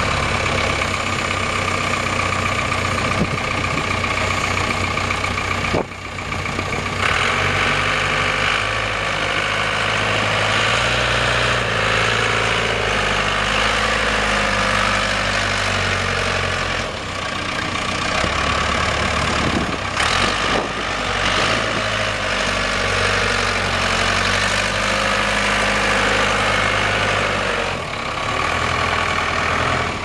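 1986 Case 580 Super E backhoe's Case 4-390 four-cylinder diesel engine running as the machine drives in tight circles. The engine note shifts up and down a few times as the load and throttle change.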